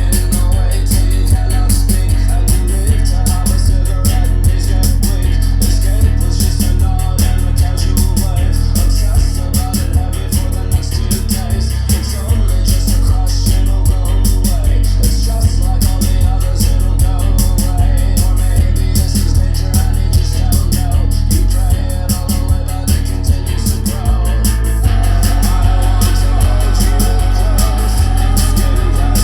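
Rock music with singing, drums and guitar playing through a Logitech Z906 speaker system and picked up by a room microphone. The bass is heavy, and the song shifts to a fuller section about 25 seconds in.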